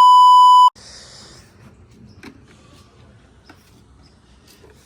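A loud, steady electronic beep at one pitch, lasting under a second at the start, cut in and out sharply like an edited-in bleep tone. Then faint background sound with a few light clicks.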